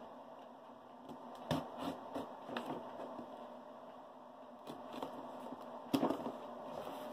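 Cardboard box being cut open with a scalpel and handled: scattered scrapes and light knocks against the cardboard, the loudest knock about six seconds in.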